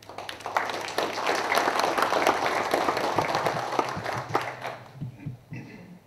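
Audience applauding: many hands clapping, swelling within the first second and dying away about five seconds in.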